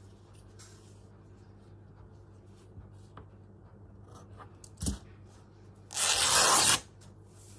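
Scissors and cotton fabric being handled while trimming: a sharp click about five seconds in, then a louder noisy rustle of cloth lasting just under a second near the end.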